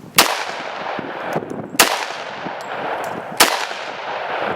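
Three pistol shots from an HK USP Tactical in .45 ACP firing .45 Super 230-grain FMJ, a high-pressure load, spaced about a second and a half apart. Each shot trails off in a long echo.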